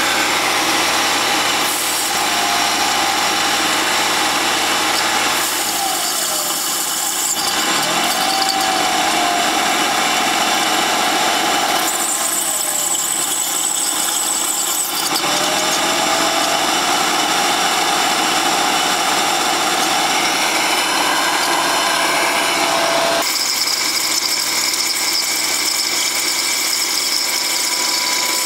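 Ford Taurus engine running at a fast idle of about 2,000 rpm with its intake open, while a garden hose sprays water into the throttle body: a steady hiss of spray and air over the engine, its pitch dipping and recovering now and then as water is drawn in. This is water being fed to the running engine to steam carbon deposits out of the combustion chambers.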